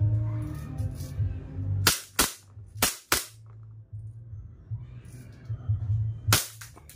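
E&C Glock 17 Gen 5 gas blowback airsoft pistol firing six sharp shots in three quick pairs, two pairs about two seconds in and the last pair near the end, each shot with the crack of gas and the slide cycling. Background music runs underneath.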